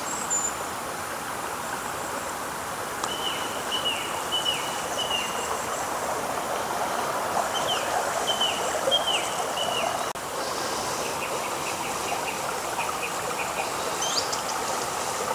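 Shallow stony river running steadily over its gravel bed. A small bird calls over it in two runs of short notes that each drop in pitch, a few seconds in and again around the middle.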